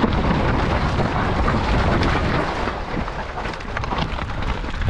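Mountain bike riding down a rough trail: a steady low rumble of tyres over dirt and rock, with constant rattling and knocking from the bike.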